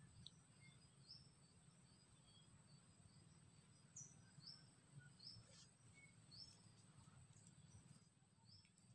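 Near silence of outdoor forest ambience: faint short, high bird chirps about once a second over a steady, high insect whine.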